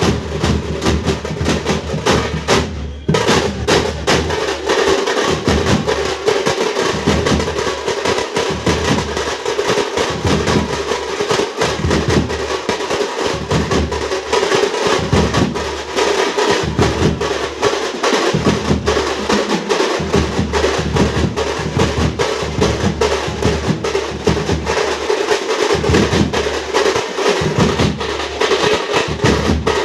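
A troupe of hand drums playing a fast, dense, continuous rhythm, with rapid strokes throughout and a short lull about three seconds in.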